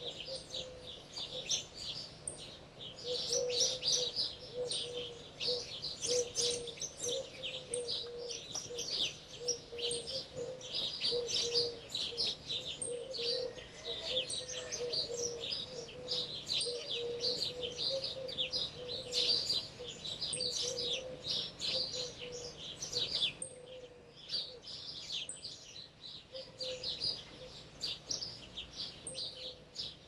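Many small birds chirping and twittering densely and without pause. A lower run of short repeated notes sounds beneath them and drops away about three-quarters of the way through.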